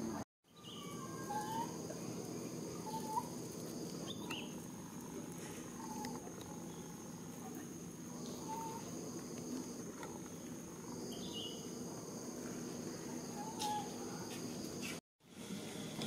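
Outdoor ambience: a steady high insect drone, with short rising chirps every second or two over a low background murmur. The sound cuts out briefly just after the start and again near the end.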